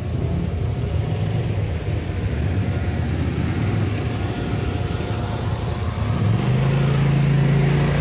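UTV engine running, a steady low rumble that settles into a steadier, slightly higher hum about six seconds in.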